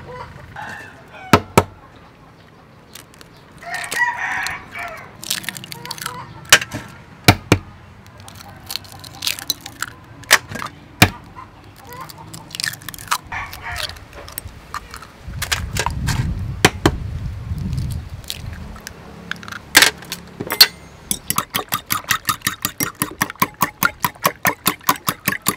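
Eggs tapped and cracked on the rim of a ceramic bowl with sharp single clicks. Near the end they are beaten with a spoon, a quick steady run of clinks against the bowl at about four or five a second.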